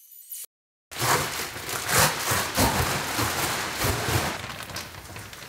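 A plastic garbage bag crackling and rustling as it is handled, with irregular dull thumps, starting after a moment of silence about a second in.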